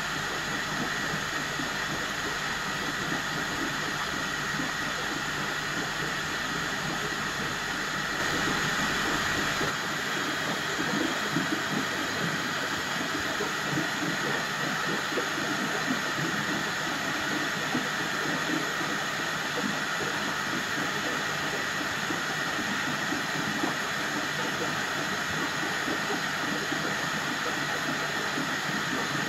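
Steady rushing hiss of a running aquarium filter, with a faint crackle underneath; a low rumble drops away about ten seconds in.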